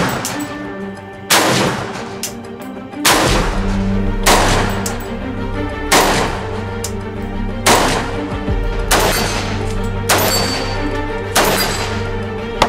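AK-pattern rifles fired in single shots, about eight sharp reports spaced a second or so apart, over background music.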